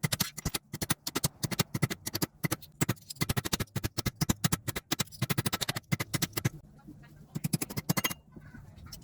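A rapid run of sharp clicks and taps from hand-tool work on metal parts, thinning out about six and a half seconds in, then a short burst of taps near the end.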